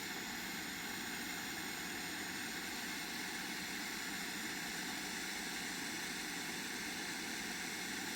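Bernzomatic butane soldering torch running with its soldering-iron tip attached, a steady, even hiss of burning gas as it heats a wire.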